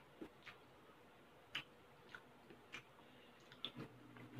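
Quiet mouth sounds of someone eating with close-up audio: soft, irregular chewing clicks and lip smacks, about one a second, getting busier near the end.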